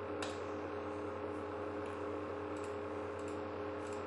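A few scattered computer mouse clicks and keyboard keystrokes over a steady low hum.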